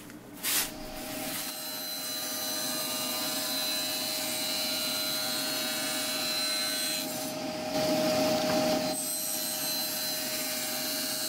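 SawStop table saw switched on with a click and coming up to speed, then running steadily while its blade cuts a 1/4-inch-deep groove into a half-inch acrylic router base plate fed along the fence. The cut gets louder for about a second around two-thirds of the way through.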